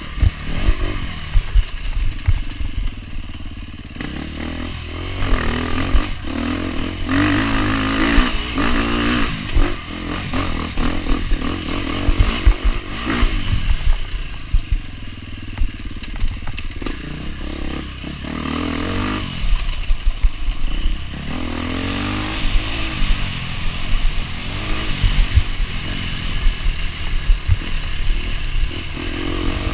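KTM enduro motorcycle engine revving up and down repeatedly as the rider works the throttle along a rough dirt trail. Short knocks and rattles from the bike bouncing over bumps run underneath.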